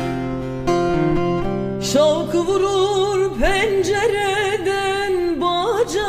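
Turkish folk song played live on two bağlamas (long-necked saz), picking a melodic phrase on their own. About two seconds in, a woman's voice comes back in, singing a wavering, ornamented melody over the strings.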